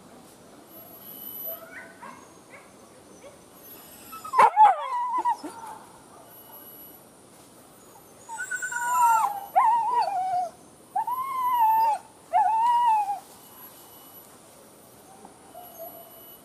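Leashed hunting dogs whining and howling: a sharp yelp about four seconds in, then four drawn-out whining howls, each rising and falling in pitch, from about eight to thirteen seconds in.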